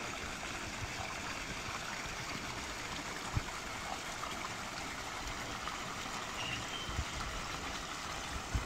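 Steady rush of running water flowing through a sturgeon pond, with a couple of brief low bumps.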